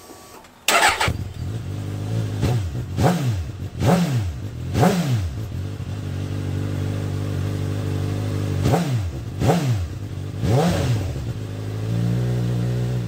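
Suzuki GSX-S1000's inline-four engine starting about a second in and idling through an SP Engineering Tri Oval big-bore carbon fibre end can with its baffle removed. It is blipped sharply seven times, four quick revs in a row, then a steady idle, then three more.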